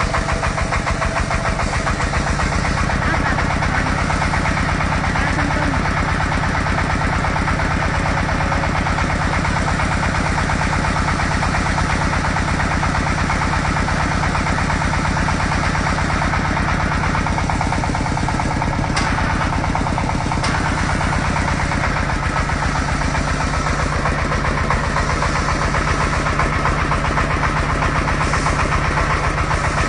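Engine of an industrial drilling machine running steadily with a fast, even beat, its pitch shifting slightly about twenty seconds in.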